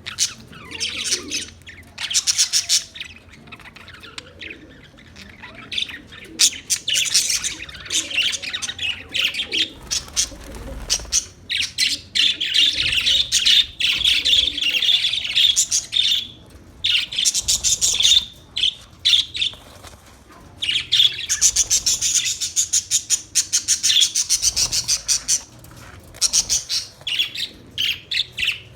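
A flock of small Australian parrots chattering and squawking in spells of fast, high notes, with short pauses between spells.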